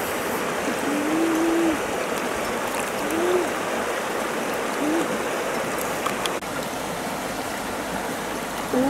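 Steady rush of flowing river water. A few short pitched sounds that rise and fall break in about a second in, around three and five seconds, and again at the end.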